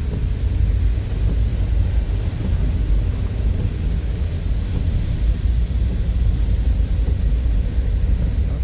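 Inside a moving car's cabin on a rainy day: a steady low rumble of road and engine noise, with an even hiss over it from the wet road and rain.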